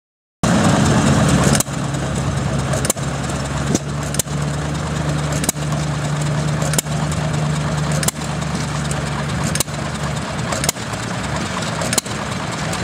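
Small antique stationary gas engines running, a steady low hum broken by sharp pops about every second and a half.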